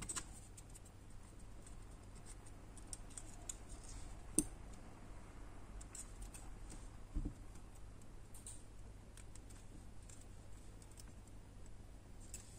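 Faint scattered clicks and light taps of wooden craft sticks and thin wire being handled and twisted together by hand, with a sharper tick about four seconds in and a duller knock about seven seconds in.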